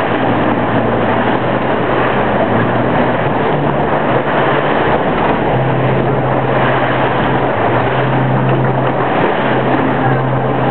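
Chao Phraya Express Boat's engine droning steadily underway, its low note stepping slightly up and down a few times, over a constant rush of water and wind noise.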